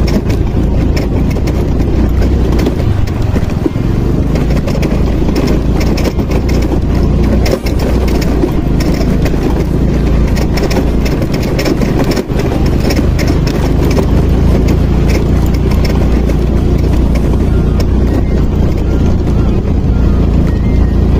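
Vehicle engine running steadily under load on a steep off-road climb, with frequent short knocks and rattles from the rough track.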